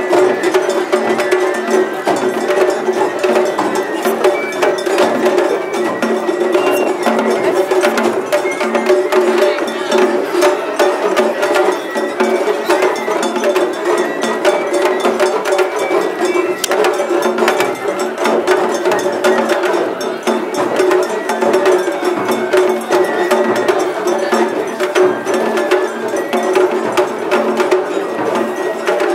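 Matsuri-bayashi festival music from a dashi float: taiko drums and metallic clanging percussion played in a quick, continuous rhythm.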